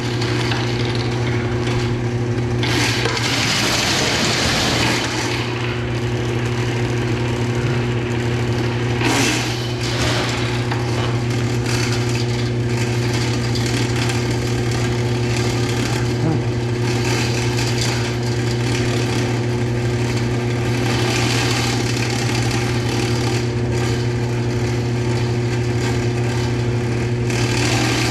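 Electric motor running steadily with a low hum and a broad rushing noise over it.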